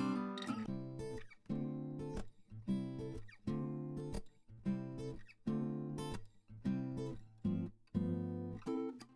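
Background music of acoustic guitar, strummed and plucked chords following one another in a steady run.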